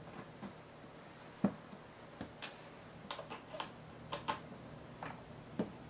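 Faint, irregular small clicks and ticks of a T8 Torx screwdriver backing out the display hinge screws of a MacBook Air, the loudest about one and a half seconds in.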